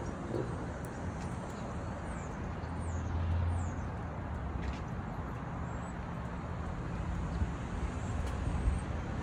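Steady road traffic noise, with a low rumble that swells for about a second around three seconds in.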